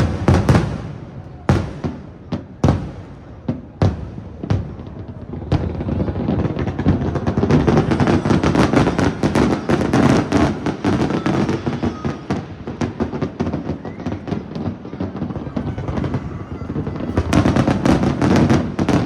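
Aerial fireworks shells bursting: a few separate sharp bangs over the first five seconds, then a long dense barrage of rapid crackling bursts, with heavier bangs again near the end.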